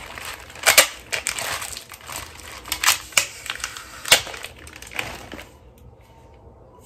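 Plastic packaging crinkling and crackling as an item is handled and unwrapped by hand, with a series of sharp irregular crackles that die away about five seconds in.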